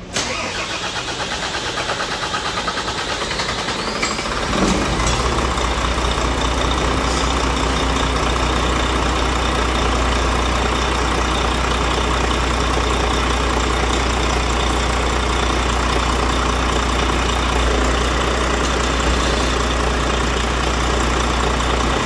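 Volvo truck's six-cylinder diesel engine being cranked by the starter for about four and a half seconds, catching, then idling steadily. It is a restart after the fuel system was bled of the air that was causing the hard starting.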